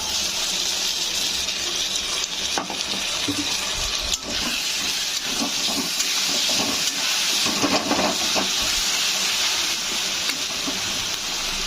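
Ground onion, ginger, garlic and cumin paste frying in hot mustard oil with browned onions in a kadai: a steady sizzle, with a few light knocks.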